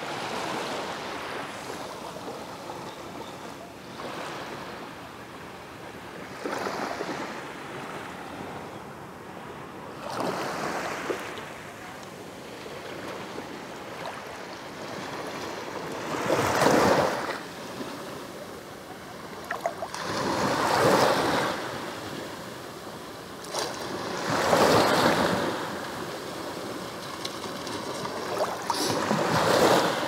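Small sea waves washing in and out over the sandy shallows at the water's edge. The wash swells and falls back every few seconds over a steady hiss, and the swells grow louder in the second half, coming about every four seconds.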